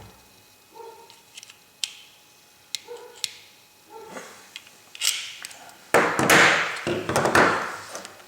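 Metal multi-tools being handled and unfolded: scattered sharp clicks and taps, then a loud rough scraping rustle about six seconds in that lasts a second and a half.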